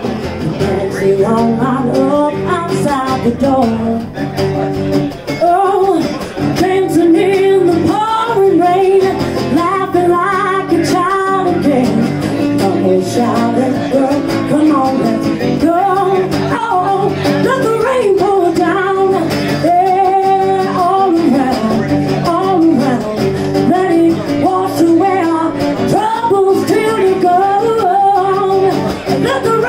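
A woman singing a song, accompanied by an acoustic guitar.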